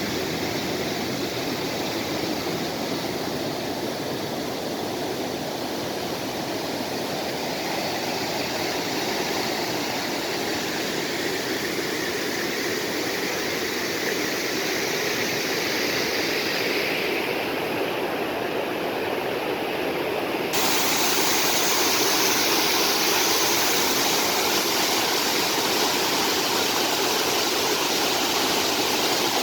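Mountain valley stream rushing and splashing over rocks. About twenty seconds in it changes abruptly to a louder, brighter rush of water.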